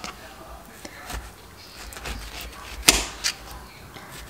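Small kitchen knife cutting the peel off an orange on a plastic cutting board: soft slicing and scraping, with a sharp knock of the blade against the board about three seconds in and a smaller one just after.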